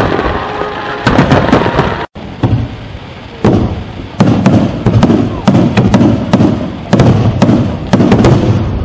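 Fireworks display: a rapid series of aerial shell bursts and crackling bangs. The sound breaks off for an instant about two seconds in, comes back quieter, then picks up into a denser run of bangs from about three and a half seconds on.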